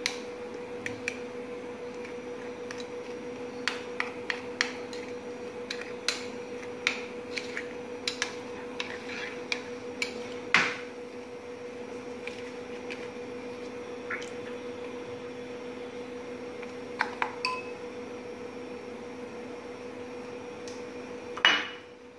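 Metal spoon clinking and scraping against a glass bowl while cream and powdered sugar are stirred together: irregular light clinks, a few louder ones, over a steady hum.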